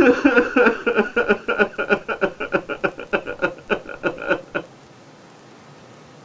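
A man sobbing in short, rapid voiced catches of breath, about four or five a second, that fade out about four and a half seconds in.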